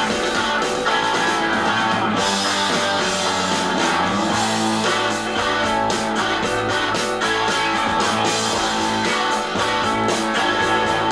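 Classic rock with guitars and a drum kit keeping a steady beat, played from a vinyl LP on a turntable.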